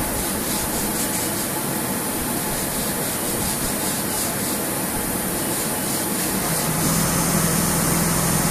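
IMA CNC machine running with a steady hiss. A steady low hum comes in about three-quarters of the way through.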